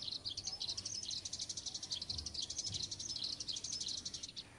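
Rapid, steady, high-pitched chirping of small wild creatures, many chirps a second.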